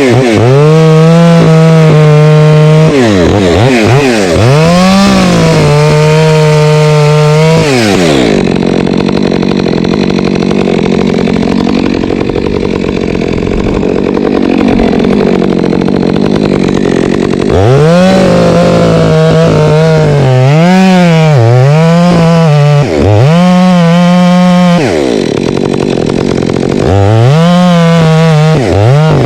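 Two-stroke chainsaw running at full throttle, its note dropping and rising several times as the throttle is let off and opened again. For about nine seconds in the middle it cuts through mango wood, the clean engine note giving way to a coarse cutting noise.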